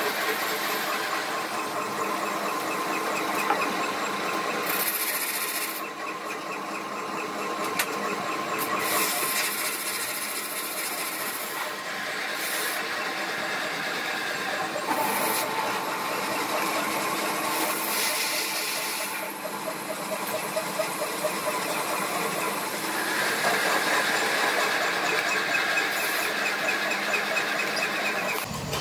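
Metal lathe running and cutting a small steel ring held in its chuck: a steady machine whine, with stretches of higher, hissing cutting noise that come and go every few seconds.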